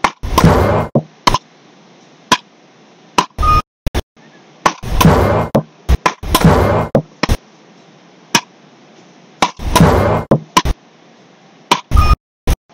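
Beach racket paddles hitting a small ball back and forth in a fast rally: a run of sharp cracks roughly a second apart, with several louder, longer noisy bursts among them.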